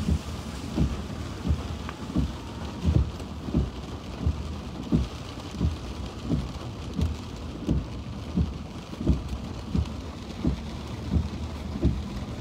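Heavy rain beating on a car's windshield and roof, heard from inside the car. Under it, low thumps come at a steady pace, about three every two seconds, from the windshield wipers sweeping at speed.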